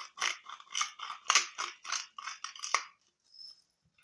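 Fork beating eggs in a bowl: quick, even clicking strokes, about four a second, that stop about three seconds in.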